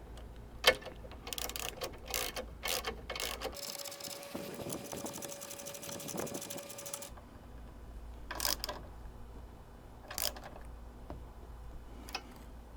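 Socket ratchet wrench working bolts on a light-bar mount: a sharp click, then a quick run of ratchet clicks, then a few single clicks later on.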